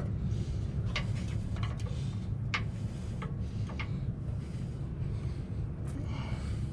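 A few light metallic clicks and rubbing as the exhaust hanger and mounting bracket are handled and fitted under the truck, over a steady low hum.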